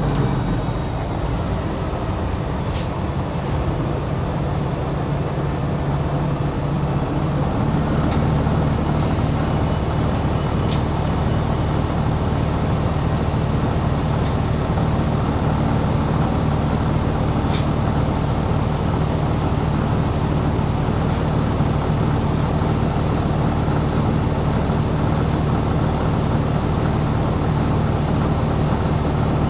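2020 New Flyer XD60 articulated diesel bus under way, heard from inside: a steady engine and road noise with a low drone that grows stronger about eight seconds in.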